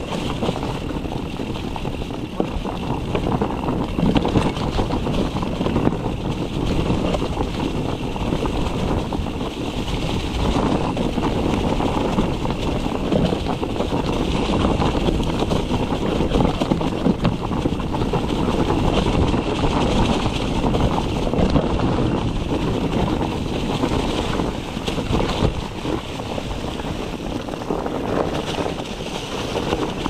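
Mountain bike descending a rough dirt trail: the tyres and frame rumble and rattle over the ground without a break.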